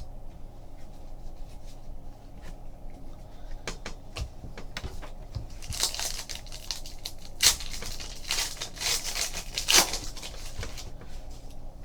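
Foil trading-card pack wrapper being torn open and crinkled, in rustling bursts that start about four seconds in and peak in the second half.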